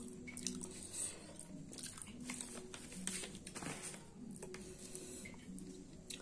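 Soft, wet squishing as fingers mix mashed khichuri on a steel plate, in irregular short bursts, with chewing in between.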